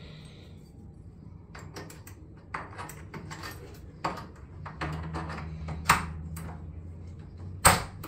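Clicks and clacks of an electronic combination lever lock being worked by hand: the lever handle pressed and released and the latch snapping, a run of small clicks with two sharp clacks, one about six seconds in and one near the end.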